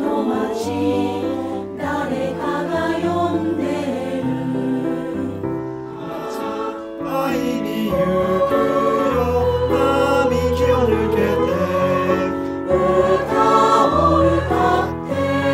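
A choir singing in harmony, with several voices over low sustained bass notes that change every second or so.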